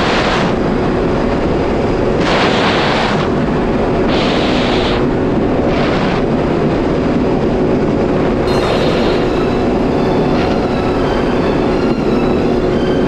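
Yamaha GP1800R SVHO personal watercraft's supercharged engine running steadily while the ski is under way. Loud hissing rushes break over it every second or two.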